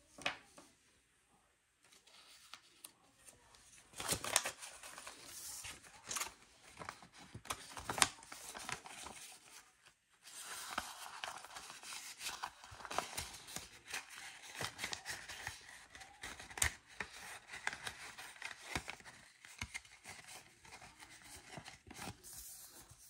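Paper banknotes and envelopes rustling and crinkling as cash is handled and stuffed into envelopes, with small sharp clicks and taps; the rustling starts about four seconds in and continues.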